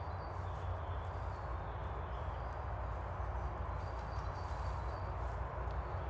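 Footsteps of a person walking through forest undergrowth, over a steady low rumble, with a few faint high bird chirps.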